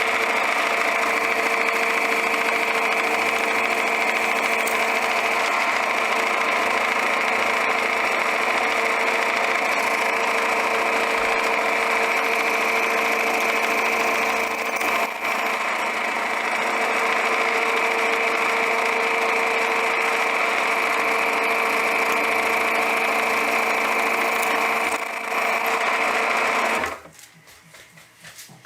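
Small electric power tool motor running steadily, with two brief dips partway through, then switched off near the end.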